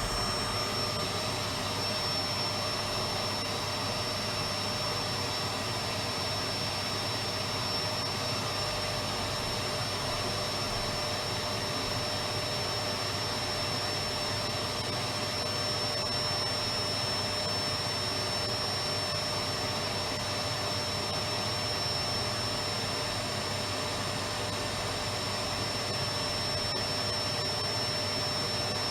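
Electric vacuum cleaner running continuously: a steady, even rush of motor and airflow noise with a constant high whine on top.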